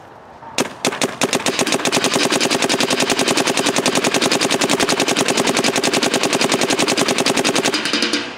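Dye M3+ electronic paintball marker firing: a few single shots about half a second in, then a long, rapid, even string of shots that stops just before the end.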